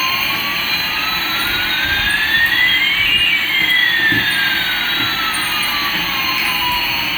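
Jet-engine sound, likely the toy Airbus A380's built-in effect: a steady rushing hiss with two whining tones, one rising and one falling, that cross midway. It cuts off suddenly at the end.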